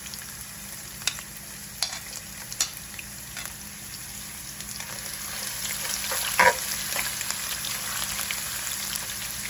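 Thin slices of coconut frying in hot oil in a frying pan, a steady sizzle that grows louder about halfway through, with a few sharp clicks. This is the coconut being fried until light golden brown.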